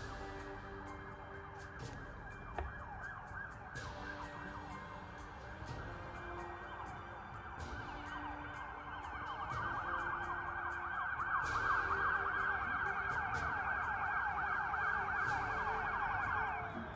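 A chorus of howling: many high, wavering voices overlapping. It swells louder about ten seconds in and cuts off suddenly near the end, with scattered faint clicks. It is the unusual howl reported from a draw at dusk and at night.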